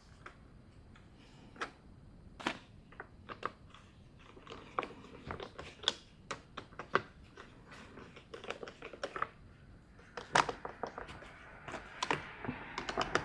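Irregular clicks, taps and small knocks of hand work on the chainsaw's small plastic and metal parts as they are fitted, growing busier and louder in the last few seconds.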